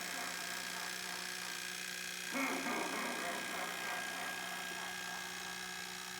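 Fright in the Box animatronic clown running in its demo: its motor and mechanism hum steadily. A louder surge of motion or sound comes about two and a half seconds in and again at the very end, repeating roughly every four seconds.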